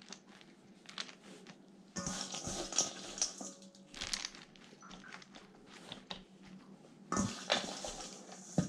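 Kitchen handling sounds as the last baked cake layer is laid onto the cream filling: scattered rustles and light clinks and knocks of dishes and utensils, with a louder clatter about seven seconds in.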